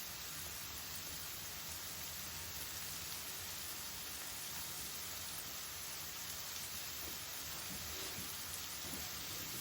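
Chicken, onions and curry spices sizzling steadily as they fry in butter and olive oil in a sauté pan while the spices cook down.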